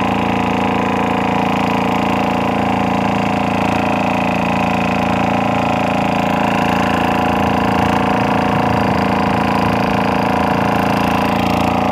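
Engine of a small wooden boat running steadily under way, a loud, even, unchanging drone.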